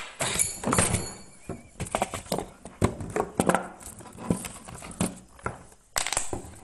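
A man laughing hard, in a string of short bursts.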